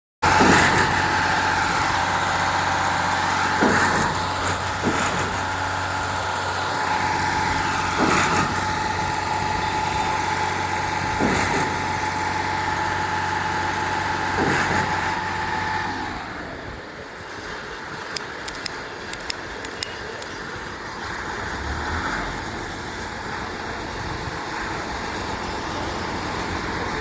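Putzmeister concrete pump running: a steady engine and hydraulic drone with a knock every three to four seconds, the pump's pistons changing stroke. About sixteen seconds in, the knocking stops and the machine settles to a quieter, lower running.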